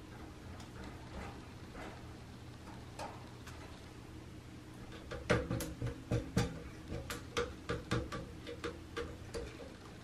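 Background music of plucked-string notes, about two or three a second, comes in about halfway, over a low steady hum. Before it there are only a few faint ticks.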